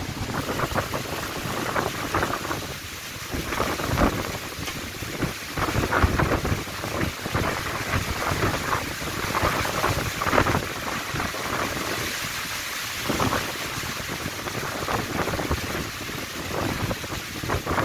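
Storm wind gusting through a large leafy tree, its leaves and branches thrashing, with wind buffeting the microphone. The gusts swell and ease unevenly every second or two.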